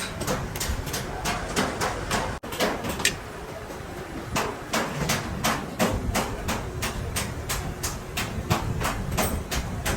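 Rapid, regular metallic knocking, about three to four knocks a second, with a brief break about two and a half seconds in.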